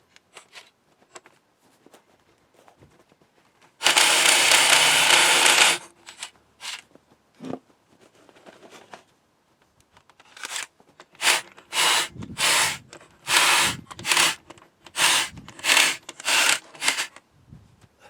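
A power tool run in bursts: one steady burst of about two seconds, then, after a pause, about ten short bursts in a row.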